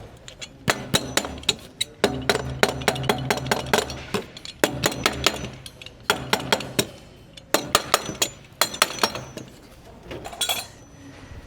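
Clusters of quick, sharp taps and clinks from hand tools on pipe fittings and brackets during plumbing installation work, several strikes a second with short pauses between the bursts.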